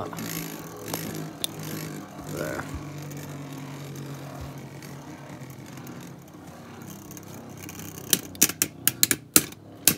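Two Beyblade Burst tops, Valtryek and Spryzen, spinning on a plastic stadium floor with a steady low whirr; from about eight seconds in they clash in a quick run of sharp clicks.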